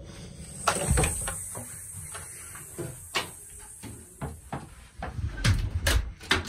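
A door being handled: a series of knocks and clicks from the latch and frame, with the loudest cluster near the end, over a steady hiss.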